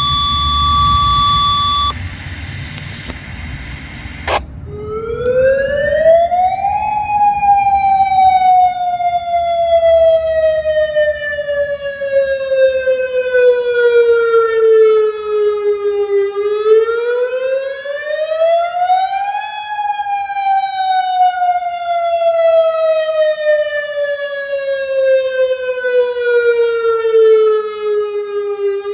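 Federal Signal DSA electronic outdoor warning siren sounding a wail on its monthly test. Starting about four seconds in, the pitch rises quickly over a couple of seconds, then falls slowly over about ten; this repeats, and it is rising again near the end.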